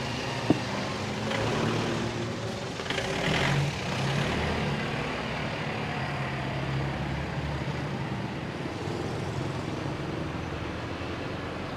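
Street traffic: a motor vehicle's engine running with a steady low hum, with the noise of passing traffic rising briefly about three seconds in. A single sharp click about half a second in.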